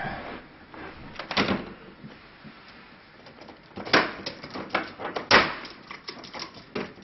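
Sharp cracks and clicks, a handful spread over several seconds with the loudest in the second half, as a plantation shutter's tilt bar is pulled off the louvers, its old fastenings snapping free one after another.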